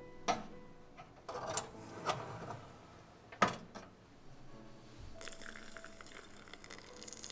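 A few light knocks and clinks, then, about five seconds in, water starts pouring onto ground coffee in a stainless steel mesh pour-over dripper as a steady hiss.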